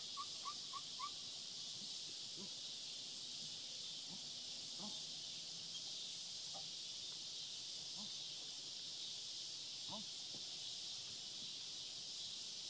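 Steady high-pitched chorus of insects, crickets or cicadas, from the field and woods. About a second in, four short high notes come in quick, even succession, followed by a few faint scattered calls.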